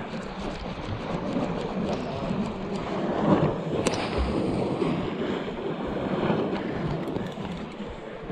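Wind buffeting the microphone of a body-mounted camera over sea waves washing against rocks, a dense continuous rumble.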